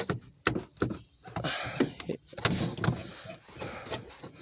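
Plastic interior trim panel of a minivan being pushed and knocked into place, its retaining clips snapping in: a series of sharp plastic knocks and clicks with some rustling between.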